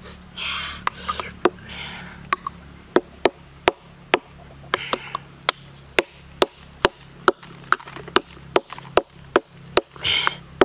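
A hand-held stone knocking on a raw oyster shell to crack it open: a steady run of sharp taps, about two to three a second, starting a few seconds in. A few short hissy noises fall between the taps.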